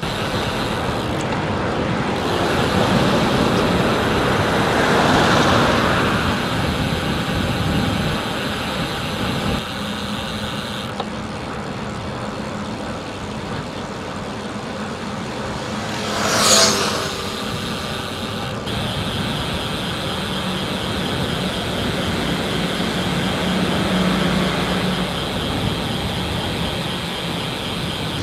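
Road traffic going by on a busy multi-lane road: a steady rush of passing vehicles, louder as one goes by about five seconds in, with one brief, sharp, loud sound a little past halfway.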